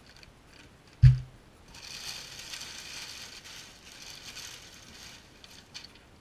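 A single loud thump about a second in as the plastic-bagged exhaust silencer is set down, then crumpled packing paper rustling and crinkling in a cardboard box for a few seconds as hands dig through it.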